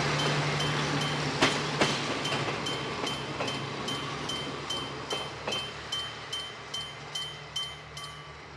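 Electric-bell level crossing warning bell ringing in rapid, evenly spaced strokes, about two and a half a second, and stopping near the end. Under it, a DD350 diesel locomotive's engine hum and the clack of wheels over rail joints fade as the train pulls away.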